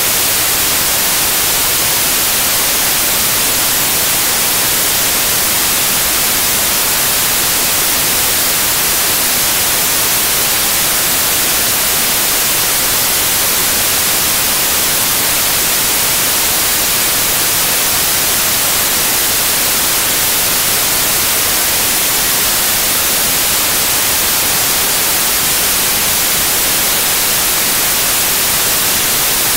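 Television static: a loud, steady, bright hiss of white noise, unchanging, with no tone or break.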